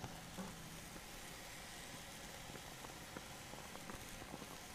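Antelope steaks sizzling faintly on a charcoal grill: a steady hiss with scattered small crackles.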